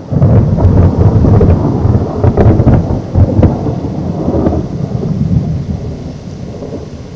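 Thunder: a sudden loud crack right at the start, then a crackling rumble that slowly fades over several seconds.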